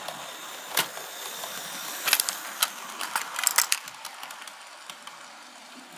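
Hornby model train running close past, a whirring hum with a string of sharp clicks from the wheels and rail joints. It swells to its loudest about two to four seconds in, then fades as the train moves away.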